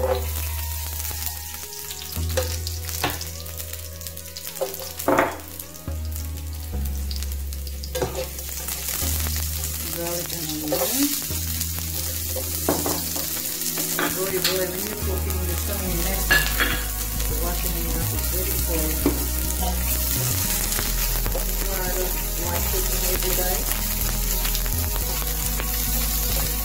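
Chopped garlic and sliced red onion sizzling in hot oil in a non-stick pan as a slotted spatula stirs them. A few sharp clicks and knocks come in the first eight seconds or so, as pieces go in and the spatula touches the pan; after that the sizzle is steady.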